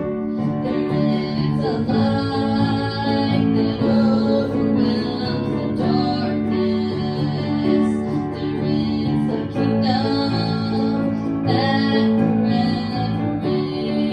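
Female voices singing to an acoustic guitar.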